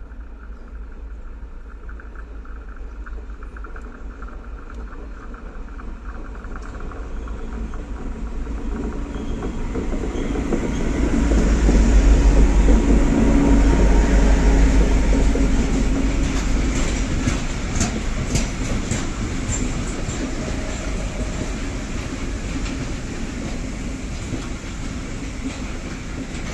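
Vossloh Maxima 40 CC diesel-hydraulic locomotive approaching and passing close by, its deep engine drone building to a peak about halfway through. It is followed by loaded coal hopper wagons rolling past, with repeated sharp wheel clicks over the rail joints.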